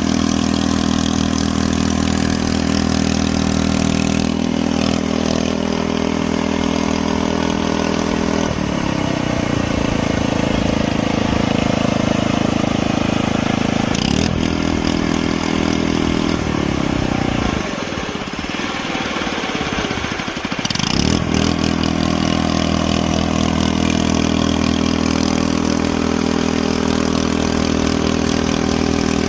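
Hand-built RC Cat D11 bulldozer model running, a steady engine-like drone. The pitch changes a few times, and about two-thirds of the way through it sags and slides down, then climbs back to the steady drone.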